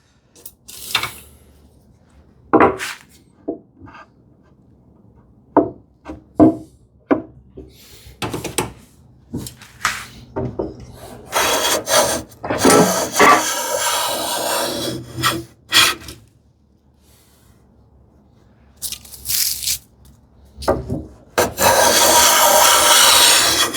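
Knocks of a heavy wooden panel being handled, then long rasping strokes of a hand tool along the wood, twice, the second run lasting to the end: typical of breaking the sharp edges of a freshly cut panel.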